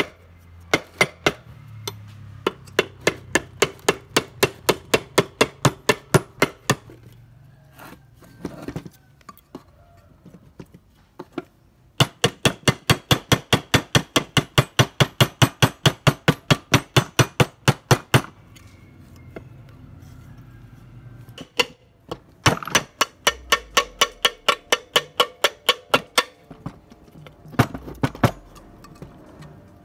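Socket ratchet wrench clicking in quick, even runs as it turns the crankcase-cover bolts of a Honda GX160 engine, in three bursts with pauses between and a few separate knocks.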